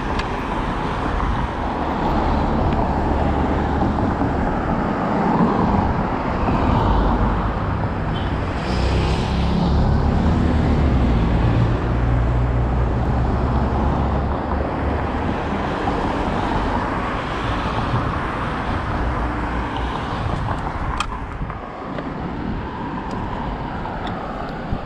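Road traffic passing a street crossing: cars driving by in a steady wash of tyre and engine noise. A vehicle's low engine rumble swells through the middle, and there is a single sharp click near the end.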